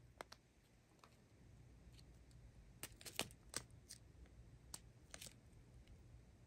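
Strips of plastic diamond-painting drill bags being handled, faintly crinkling and clicking a few times around the middle over near-silent room tone.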